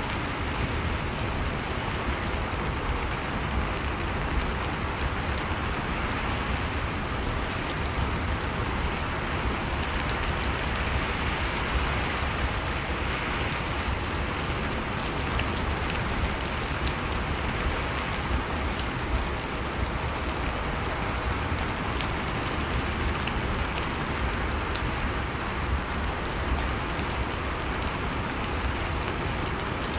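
Steady, even rain falling, with scattered faint drop ticks.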